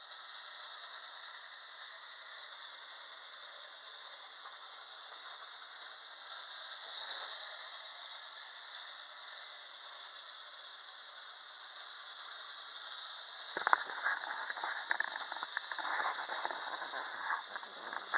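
Bachmann DeWitt Clinton model locomotive running around a small circle of track, its little motor and drive giving a steady high-pitched whine and hiss. About three-quarters of the way in, irregular clicking and rattling of the wheels and cars on the track joins in.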